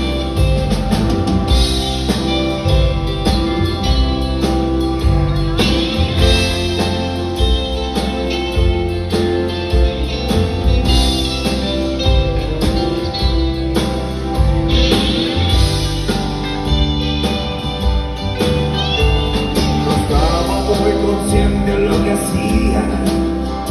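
Live rock band playing: drum kit and electric guitar over a heavy bass line, loud and continuous.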